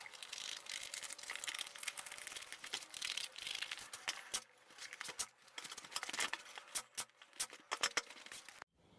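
Scissors cutting and the rustle of a black motorcycle seat cover being handled. From about four seconds in, a pneumatic staple gun fires a quick run of sharp shots, fixing the cover to the plastic seat base.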